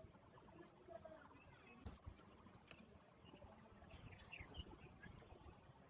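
Faint, steady high-pitched insect drone, with one sharp knock about two seconds in.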